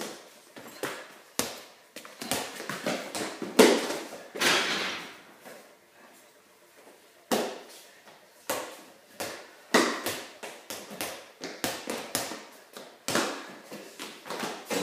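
Basketball bouncing on a hard garage floor: a string of irregular thuds, the loudest about three and a half seconds in, each ringing briefly in the room.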